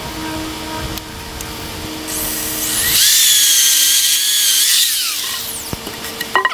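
Corded electric drill starting up with a rising whine, running at a steady high pitch for about three seconds, then winding down. A few sharp clicks follow near the end.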